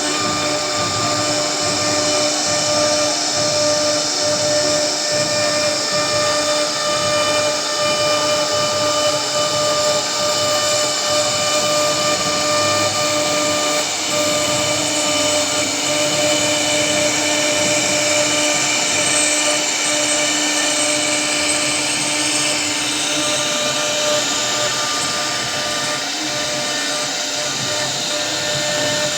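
CNC router spindle running with a steady high-pitched whine over a hiss as it cuts wood.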